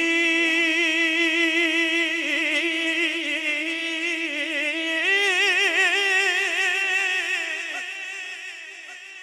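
A man singing a naat unaccompanied, holding one long note on the last syllable of a line. About five seconds in the note steps slightly higher and wavers with vibrato, then fades toward the end.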